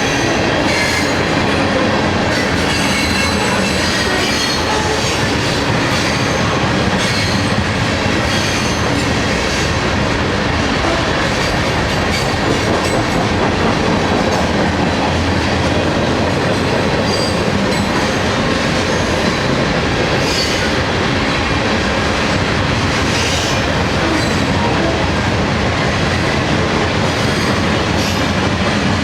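Mixed freight train's cars rolling past close by: a steady loud rumble and clatter of steel wheels on the rails, with brief high wheel squeals now and then.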